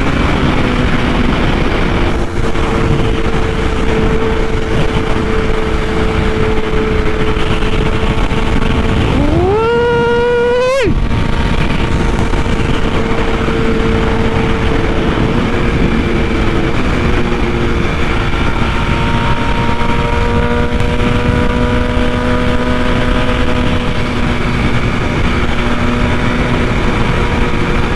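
BMW S1000RR inline-four engine running at speed under heavy wind rush. About nine seconds in, the revs climb steeply and then cut off abruptly before it settles back into steady running.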